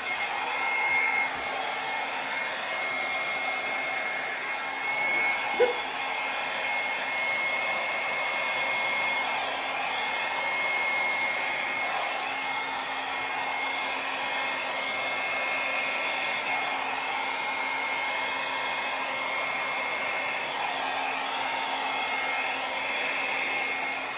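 Small handheld blow dryer running steadily, a rush of air with a steady high whine, as it blows wet acrylic paint across the canvas. A brief sharp click about five and a half seconds in.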